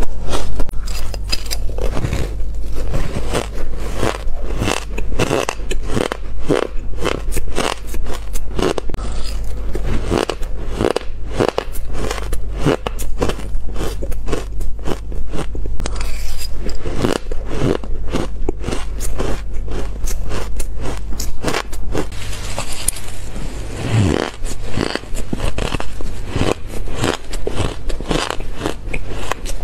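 Close-miked crunching and chewing of powdery shaved ice, with a metal spoon scraping through it. It is a dense run of crisp, crackly crunches over a steady low electrical hum.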